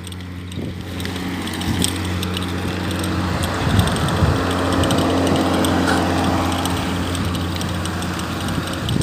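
Riding a bicycle: tyre rolling noise and wind on the microphone over a steady low hum, the noise swelling through the middle and easing off near the end.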